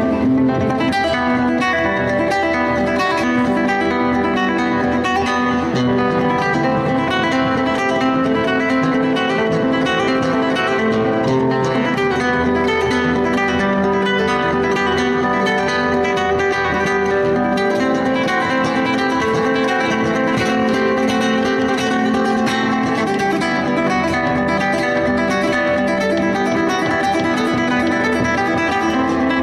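Solo acoustic guitar music, plucked and strummed, at a steady even level.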